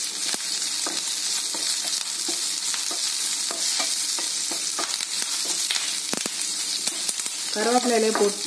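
Curry leaves, garlic and chillies sizzling in hot oil in a nonstick frying pan, stirred with a wooden spatula that scrapes and taps now and then. A brief voice-like sound near the end.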